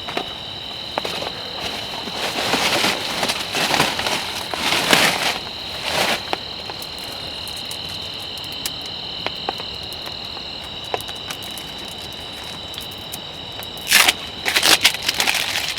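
Steady high-pitched insect chorus of crickets, two even tones running throughout. Several short bursts of rustling, crackling noise come over it from about two to six seconds in and again near the end.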